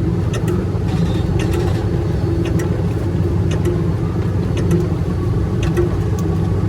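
Large excavator's diesel engine running steadily under load, a constant low drone, with a few scattered sharp ticks on top.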